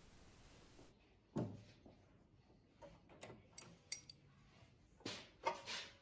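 Faint scattered metallic clinks and knocks of wrenches and a bolt being handled while the belt retention bolt comes off a snowblower. The loudest knock falls about a second and a half in, with a few lighter clicks in the middle and another group near the end.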